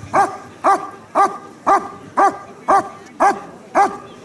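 German Shepherd barking steadily and rhythmically, about two loud barks a second, at a helper who stands still in front of it: the guarding bark of a protection-sport dog holding the helper in place.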